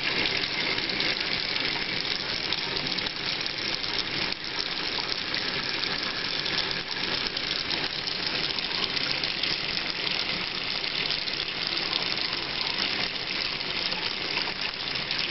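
Water running steadily from a kitchen tap into the sink, a continuous even hiss.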